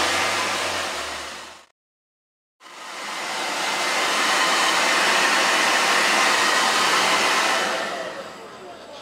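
Handheld blow dryer running steadily, blowing hot air to dry freshly screen-printed ink. The noise cuts out abruptly just before two seconds in, returns about a second later, and fades down near the end.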